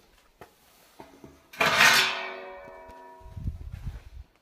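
A stainless-steel ultrasonic cleaner being opened after its cleaning cycle: a couple of faint clicks, then a sudden metallic clang that rings on and dies away over about a second and a half. Low knocks and handling thumps follow near the end.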